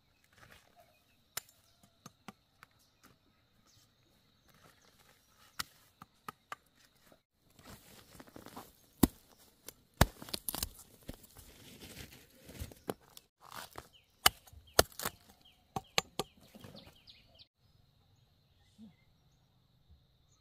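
A large knife chopping kohlrabi off its roots and trimming the leaves: scattered sharp cuts at first, then a dense run of chops and leaf rustling through the middle, with the loudest cracks about nine and ten seconds in. A faint steady high whine lies behind it.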